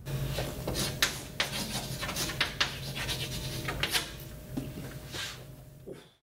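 Chalk scratching and tapping on a blackboard in a quick run of short strokes as a signature is written. The sound cuts off suddenly near the end.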